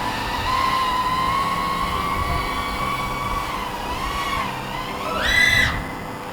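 FPV quadcopter's motors and propellers whining, the pitch wavering with throttle, then rising sharply about five seconds in on a burst of throttle and dropping back.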